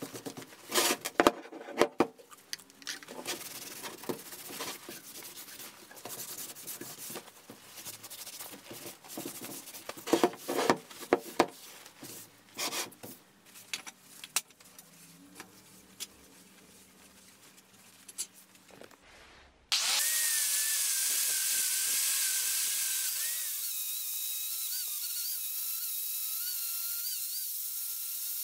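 Rag scrubbing and wiping over an old anvil during acetone degreasing, in irregular scuffing strokes. About twenty seconds in, an angle grinder with a steel wire wheel comes in suddenly, running with a loud steady hiss and high whine whose pitch drops a little a few seconds later as it brushes rust off the anvil.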